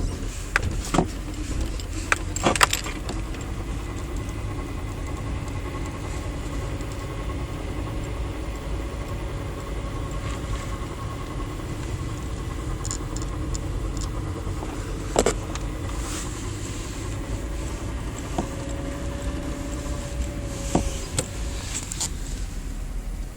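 Honda Civic Si engine pulling away slowly in first gear, with a thin whine coming and going over the engine rumble: an unexplained noise heard only under acceleration, which the owner places near the driver's side. A few sharp clicks sound early on and about halfway through.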